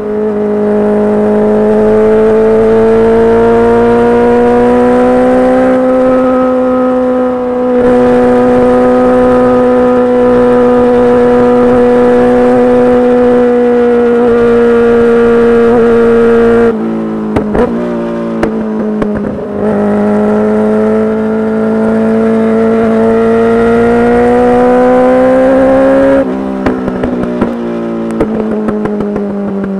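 Kawasaki Ninja H2's supercharged inline-four with full titanium exhaust pulling hard at high revs, its note rising slowly. About 17 s in the throttle shuts and the exhaust crackles and pops. It pulls again, then shuts off near the end with more popping.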